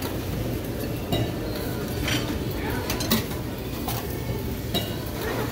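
Metal serving tongs clinking against stainless steel buffet pans as food is picked up, several sharp clinks over steady room noise.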